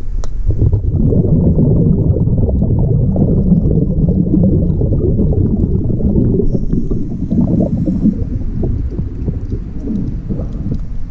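Scuba diver breathing underwater through a regulator: a long bubbling, crackling rumble of exhaled air, a brief hissing inhale about six and a half seconds in, then more exhaled bubbles.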